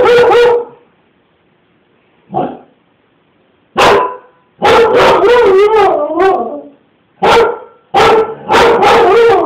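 Siberian husky barking in a loud, drawn-out, wavering voice: short barks mixed with long howl-like calls that rise and fall in pitch, in several bouts separated by short pauses.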